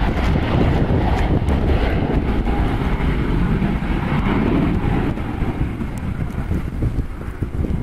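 Business jet climbing out after takeoff, its engine noise fading as it moves away. Wind rumbles on the microphone throughout.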